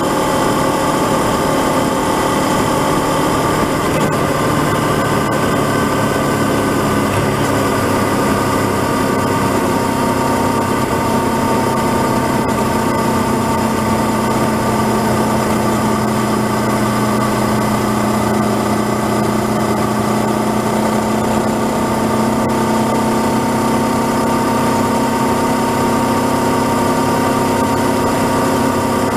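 Honda CB500X's 471 cc parallel-twin engine running at a steady cruise on the move. Its pitch drops a little about ten seconds in, then holds steady.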